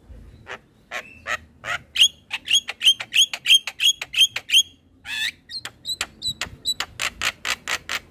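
Javan myna calling: a rapid run of short, sharp notes, about four a second, broken about five seconds in by a brief harsh rasp, then another fast run of the same notes.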